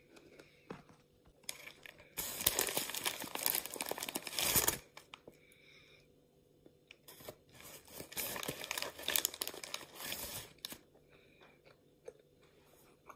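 Plastic candy packaging crinkling and rustling, in two long stretches with a quiet gap between.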